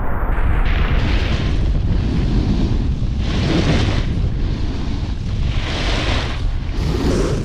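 Heavy wind buffeting the microphone at about 50 km/h, with a snowboard's edge scraping and hissing through groomed snow. The hiss rises in swells every two to three seconds as the board carves turns.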